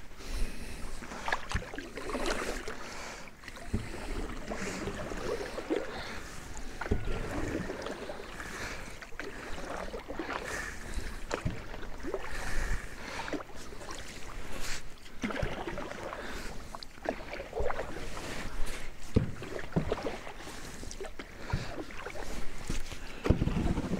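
Paddle strokes splashing and dripping as a small wooden boat is paddled with a single-bladed paddle, with scattered sharp knocks.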